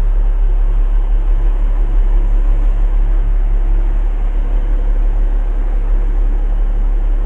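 Heavy truck's diesel engine idling in neutral, heard from inside the cab as a steady, loud, low rumble.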